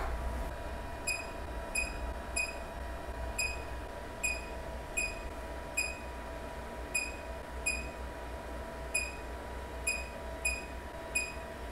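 Anycubic Kobra 3 touchscreen beeping at each tap as colour options are selected: about a dozen short, identical high beeps at uneven intervals, over a steady faint hum.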